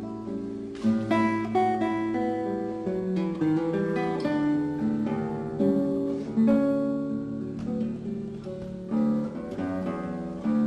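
Background music: an acoustic guitar playing a run of plucked notes that ring on.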